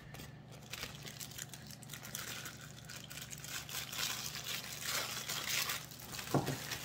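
Newspaper packing paper rustling and crinkling as hands dig through a shipping box.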